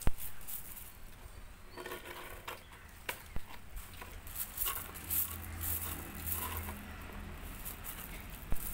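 Quiet eating at a table: small knocks and rustles of hands and food on plates and bowls, with a sharp knock at the very start, a couple more about three seconds in and another near the end, and a faint low hum in the middle.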